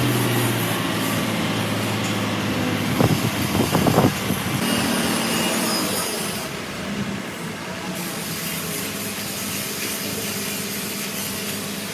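Heavy truck's engine running steadily by the road, with a brief cluster of sharp, loud noises about three to four seconds in.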